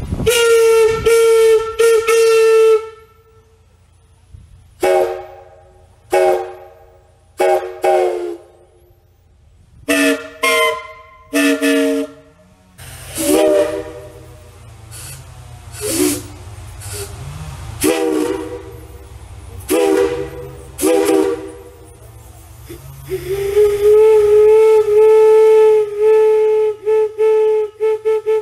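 Steam locomotive whistle blown on compressed air. It gives a long blast, then a series of short toots, then another long blast near the end that rises slightly in pitch as it opens.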